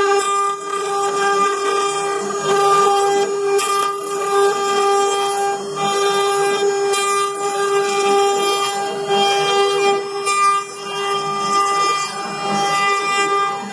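Wood router spindle on a CNC Shark running with a steady whine while cutting a wooden knob turning on the rotary 4th axis, with rough cutting noise underneath that rises and falls as the bit moves.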